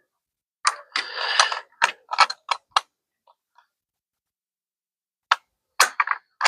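Hand tools and small metal hardware clicking and clattering. There are a few sharp clicks, a short rattle about a second in, a quick run of clicks just before three seconds, a pause, then more clicks near the end.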